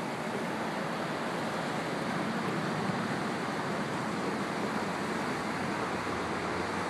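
Steady rushing of the Clark Fork River in spring flood, running high and fast below a road bridge, mixed with road traffic on the bridge.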